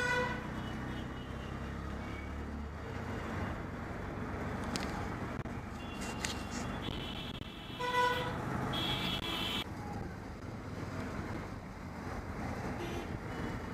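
Riding inside an auto-rickshaw in city traffic: the engine and road noise run steadily, with a vehicle horn honking briefly at the start and again about eight seconds in.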